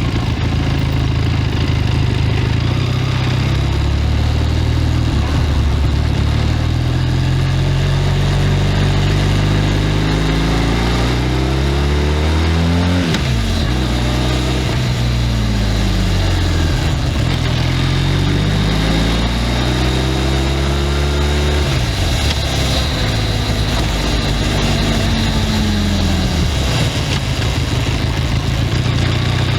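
Benelli 502C's stock parallel-twin engine and exhaust running as the bike is ridden: the revs climb slowly for several seconds, drop sharply about 13 seconds in, climb again and drop about 22 seconds in, then settle to a steady note.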